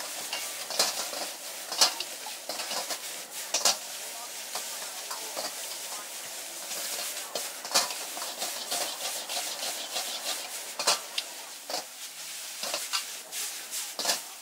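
Noodles sizzling in a hot wok as they are stirred and tossed, with a steady frying hiss and repeated sharp clicks and knocks of chopsticks and wok against metal at irregular intervals.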